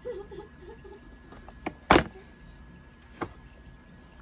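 A toddler's hand slapping a plastic high-chair tray: one loud smack about two seconds in, with a lighter tap just before it and another about a second later. A short wavering hum from the child at the start.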